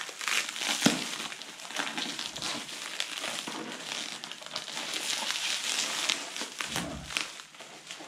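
Black plastic wrapping crinkling and crackling as it is torn and pulled off a cardboard box by hand, with a few sharper snaps of the plastic near the start.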